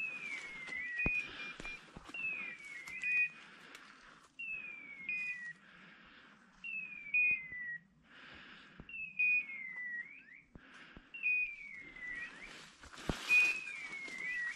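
Electronic beeper collars on English setters holding point: a descending whistle, like a hawk's scream, repeating about every two seconds with a short steady beep alongside each, the signal that the dogs are on point. Brush rustles faintly underneath.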